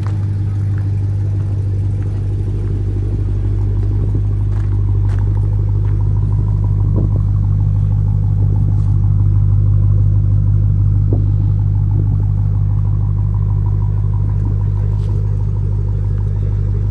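Dodge Challenger SRT Hellcat Redeye's supercharged 6.2-litre V8 idling steadily, a low, even engine note that holds without revs.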